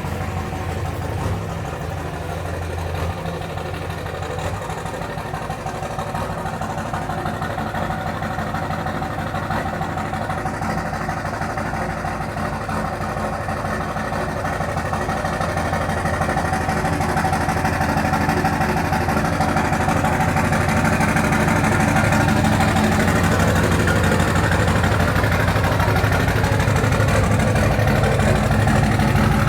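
2004 Dodge Ram's 5.9 Cummins inline-six turbo-diesel idling steadily on a cold start, growing louder over the second half. The owner puts its running down to bad injectors.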